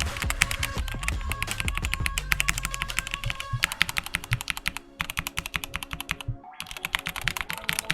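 Fast typing on a Tecware Phantom 87 mechanical keyboard, many key clicks a second in runs with a few short pauses.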